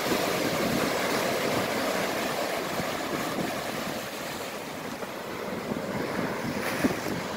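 Ocean surf breaking and foaming water washing in over the shore, a steady rush that eases a little midway and builds again toward the end.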